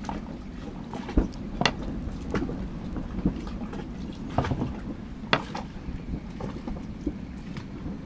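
Steady wind and open-air rumble with a scattered handful of short knocks and clicks: a knife cutting a lime on a plastic cutting board, then the lime being squeezed by hand into a glass tumbler. The firmest knock comes about a second in.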